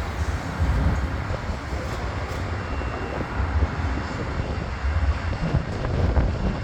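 Amtrak GE P42DC diesel locomotives running as they back a passenger train: a steady low rumble with a rushing noise over it.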